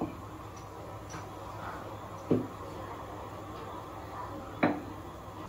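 Glass lid on a pan of simmering curry knocking twice against the rim, about two and a half seconds apart, as steam lifts it and lets it drop. A steady low hum runs under it.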